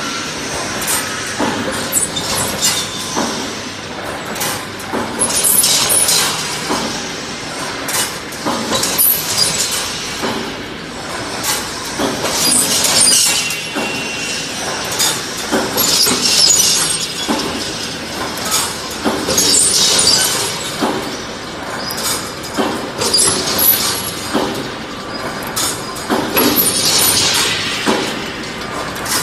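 Brickforce mesh welding machine running in production: continuous metallic clatter and clicking, with a louder, sharper burst about every three and a half seconds as the machine cycles.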